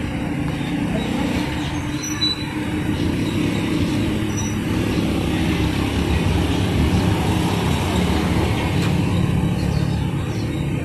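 Old 22 HP black stationary diesel engine with a large flywheel running steadily, a dense low mechanical chugging with a fast, even beat.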